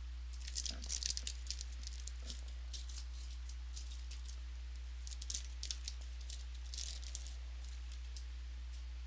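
Trading cards being handled and shuffled, with crisp crackling and rustling in two spells, over a steady low electrical hum.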